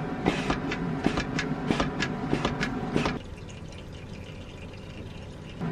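Irregular clicks and knocks from a hand-worked dinghy pump forcing air into a blocked diesel fuel line to push a clog out, over a steady mechanical hum. About three seconds in the clicking stops and only a quieter hum remains.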